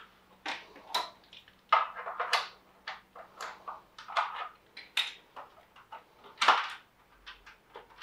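Sako S20 rifle being taken apart by hand: irregular clicks, knocks and short scrapes of the rifle's parts as its rear stock is worked loose and detached.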